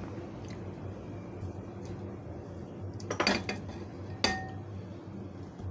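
Utensils clinking against dishes: two sharp clinks a second apart, the second ringing briefly, over a low steady hum.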